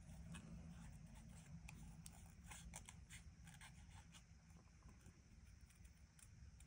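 Faint, irregular snips of small, sharp paper snips cutting through a piece of cardstock, with the card rustling as it is turned.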